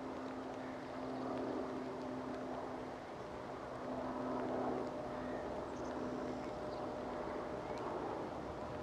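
Airbus A380 airliner's four jet engines heard from a distance as a steady drone with a low hum running through it, swelling slightly a couple of times.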